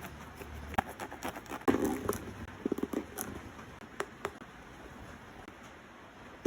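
Handling of basketball shoes and their packaging: scattered light taps, clicks and rustling. These are busiest in the first three seconds and grow sparse after that.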